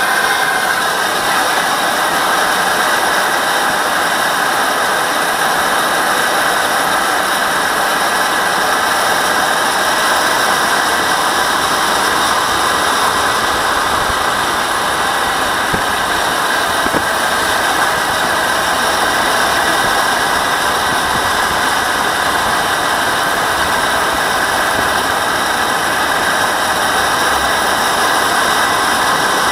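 JetCat model jet turbine on a Boomerang Elan RC jet running steadily at low ground power, heard close up from a camera on the airframe: a constant high turbine whine over a rushing noise, with a slight slow drift in pitch midway.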